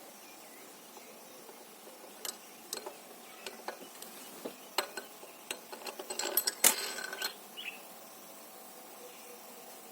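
Scattered light metallic clicks and taps as an oiled cylinder head bolt is set into its Helicoil-repaired hole in an aluminium cylinder head and started by hand, with a busier cluster of clicks about six to seven seconds in.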